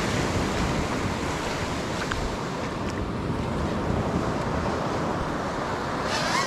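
Ocean surf washing onto a beach, with wind buffeting the microphone, as a steady rushing noise. A brief high wavering sound comes near the end.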